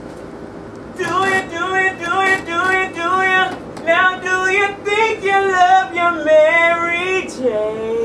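A voice singing a wordless melody in short, evenly spaced notes, starting about a second in.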